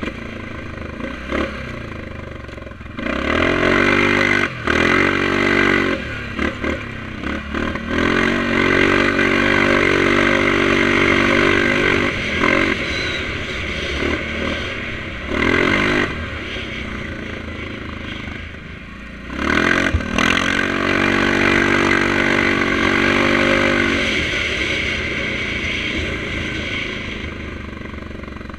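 Yamaha Grizzly 700 ATV's single-cylinder engine running through an HMF aftermarket exhaust while riding. It revs up hard about three seconds in and again near the middle, settles to a lower steady run between, and eases off toward the end.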